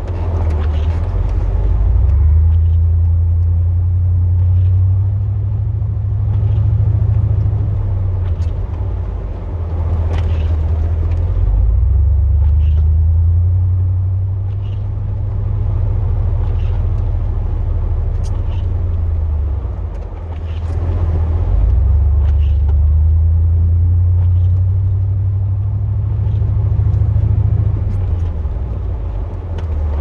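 Chevrolet Silverado plow truck running, a deep engine and road rumble that swells and eases every few seconds, with faint short ticks now and then.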